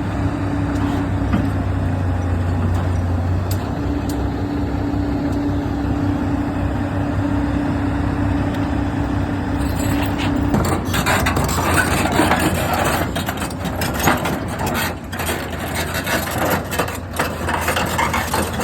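Heavy diesel engine running steadily. About ten seconds in it gives way to a rougher rumble with repeated sharp metallic knocks and clanks.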